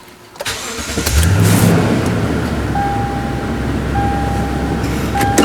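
A 2012 Toyota Tundra's engine is started: it cranks and catches about a second in, briefly revs up, then settles into a steady idle. From about halfway, a thin electronic chime beeps in short repeats over the idle.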